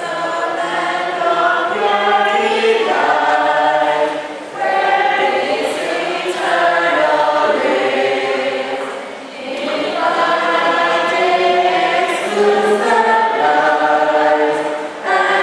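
A choir singing a sacred song in sustained phrases, with short breaks between phrases about four and nine seconds in.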